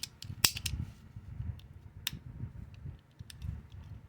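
Hand-worked trigger and hammer mechanism of a Hubley Atomic Disintegrator cap gun clicking as it is tested after repair: a sharp metallic click about half a second in and another about two seconds in, with softer ticks and handling rumble between.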